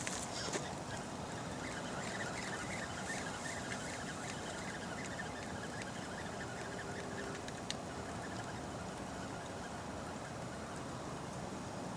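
Steady outdoor background noise on a riverbank, with a few faint chirps in the first few seconds and one sharp click about eight seconds in.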